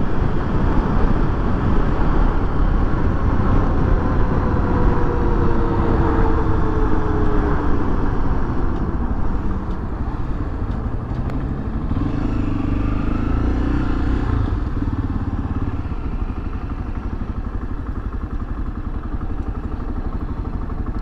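A 2013 Honda XRE300's single-cylinder four-stroke engine running on the move. Its pitch falls between about four and nine seconds in as the bike slows, picks up again around twelve seconds in, and settles lower and steadier near the end as the bike eases toward a stop.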